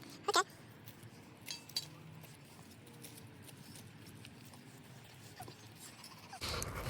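A dog gives one short, high yip near the start. After it come a few faint clicks and rustles from potato vines being cut back.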